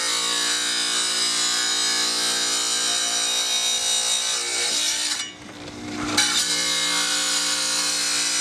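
A wet tile saw cutting through a green glass beer bottle: a steady motor whine under a harsh grinding hiss. A little past the middle the grinding drops away for about a second while the motor hum carries on, then it resumes.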